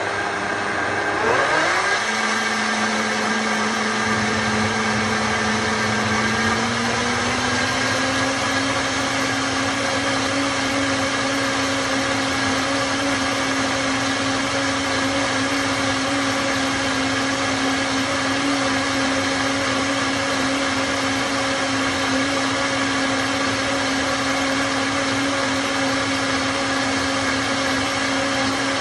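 Vitamix blender running as it purées watermelon into a drink. The motor spins up quickly at the start, rises a little more in speed several seconds in, then runs steadily.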